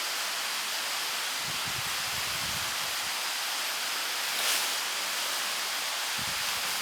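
Steady rain falling, an even hiss, with faint low thuds about a second and a half in and again near the end.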